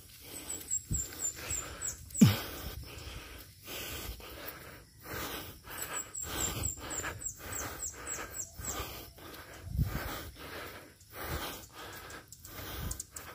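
A person breathing hard and wheezing in a steady rhythm, out of breath from climbing a steep hill trail, with a short voiced grunt falling in pitch about two seconds in.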